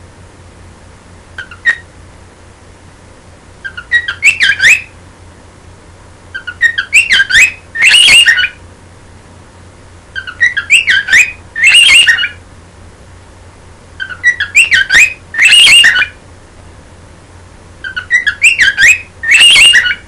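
Cockatiel singing: one short chirp, then the same warbling whistled phrase repeated five times, each about two seconds long with a few seconds' pause between.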